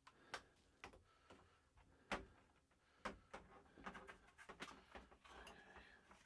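Faint, scattered clicks and light knocks from plastic shower-faucet parts being handled and fitted, the loudest about two seconds in.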